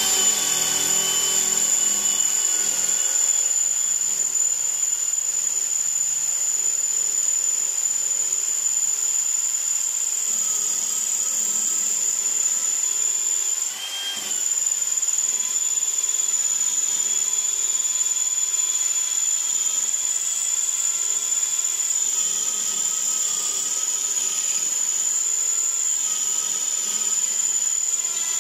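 Parkside Performance X12V brushless cordless drill driver (PBSPA 12 A1) drilling into a concrete block with a multi-material bit, in second gear and with no hammer action. The motor gives a steady high whine under load, which dips briefly about 14 seconds in and then picks up again.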